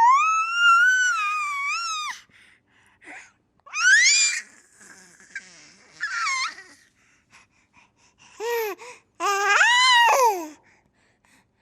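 A baby's high-pitched squealing laughter. A long squeal of about two seconds opens it, followed by shorter rising squeals and a final pair near the end, with short pauses between them.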